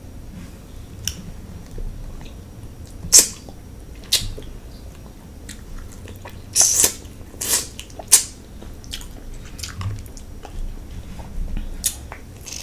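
King crab leg shells being cracked open with the teeth, close to the microphone: a series of sharp cracks and crunches, the loudest about three seconds in and a cluster a little past the middle, between quieter chewing.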